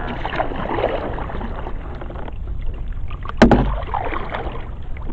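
Canoe being paddled on a river: irregular swishing and splashing of the paddle strokes in the water, with one sharp knock about three and a half seconds in.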